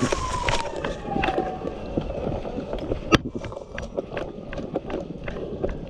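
A siren's falling wail dies away over the first second and a half. Then comes a steady patter of footsteps and clattering gear, with one sharp crack about three seconds in.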